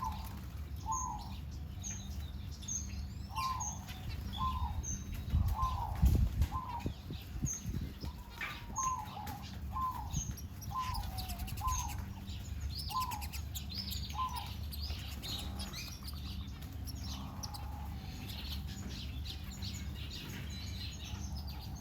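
Aviary birds calling: a run of short, sharp call notes repeated about every half second to a second, with scattered higher chirps. A steady low hum runs underneath, and a low thump comes about six seconds in.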